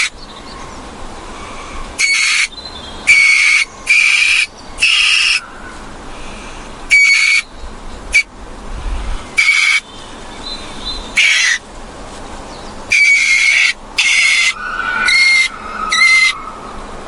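A shrill animal call repeated about eleven times, each call short (under half a second) and loud, at uneven intervals over a steady background hiss.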